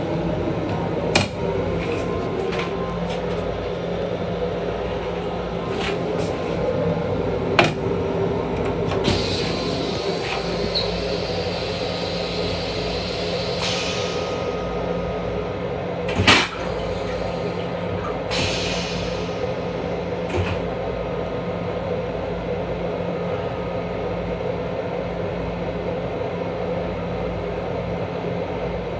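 Commuter railcar toilet being flushed: stretches of high hissing from rinse water and air, with a sharp clunk about 16 seconds in, over the steady hum and rumble of the railcar. A few lighter knocks as the seat lid is handled.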